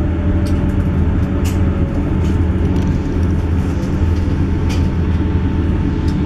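Onboard running noise of a South Western Railway Class 158 diesel multiple unit: a steady, loud low rumble of engine and wheels on rail, with a faint steady whine and a few light clicks.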